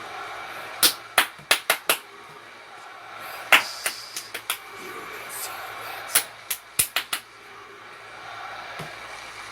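Hand claps close to the microphone in three rounds of the chant rhythm 'clap, clap, clap-clap-clap', over the steady noise of a large arena crowd heard through the broadcast.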